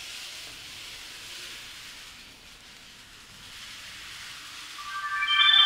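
Steady hiss, then about five seconds in an electronic chime melody of several clear tones starts and gets loud.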